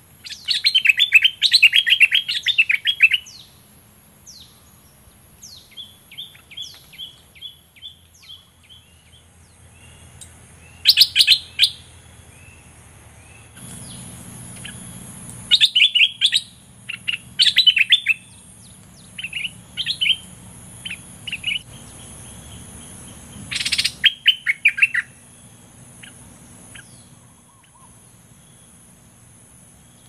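Caged decoy bulbul calling in loud bursts of rapid, chattering notes, with softer single notes in between. One sharp click about three-quarters of the way through.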